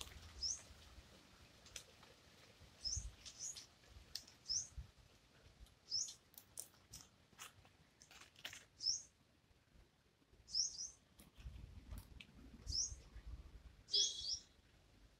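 A small bird calling with short, high, rising chirps, repeated about once a second, with a few soft clicks and a low rumble in the background.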